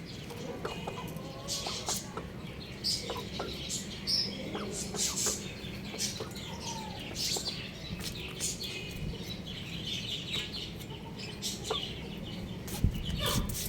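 Young rooster chirping and clucking: many short, high calls at irregular intervals over a steady low hum.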